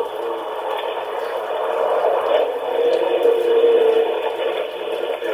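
Muffled, narrow-band radio-like sound from the squad car's dashcam microphone: indistinct voices under a steady hiss, with no words coming through.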